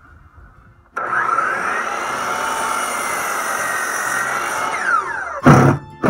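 A Ridgid miter saw starts up suddenly and cuts through a wooden board, its motor whining steadily, then spins down with a falling whine. Near the end, two short bursts from a cordless drill driving screws into wood.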